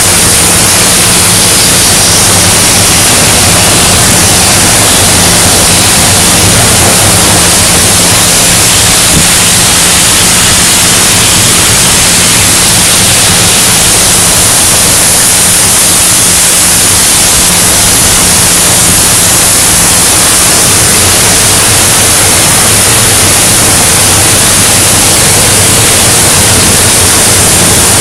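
CNC profile cutting machine's torch cutting steel plate: a loud, steady hiss with a low hum underneath.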